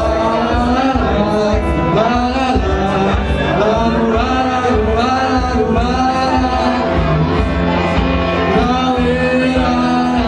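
A man singing into a microphone over live guitar accompaniment, a small band playing a song.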